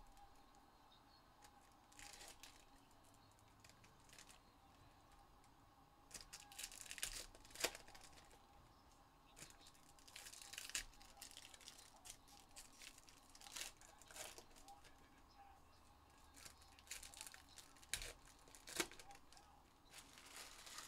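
Trading-card pack wrappers being torn open and crinkled, in several short, faint bursts of tearing and rustling.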